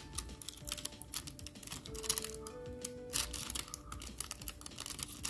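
Nail transfer foil's plastic film crinkling and clicking in a scatter of small irregular ticks as a fingernail presses and rubs it onto an artificial nail tip. Soft background music with slow held notes plays underneath.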